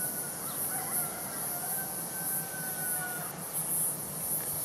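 A Fokker 70 jet airliner landing at a distance: a faint engine whine that slides slowly down in pitch, over a low rumble. A steady high-pitched insect buzz is the loudest sound throughout.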